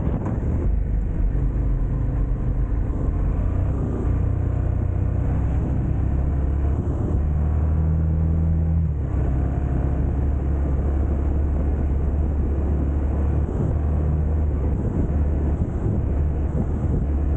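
Yamaha Ténéré 700's parallel-twin engine running at low, steady revs on the move, its note shifting briefly about halfway through.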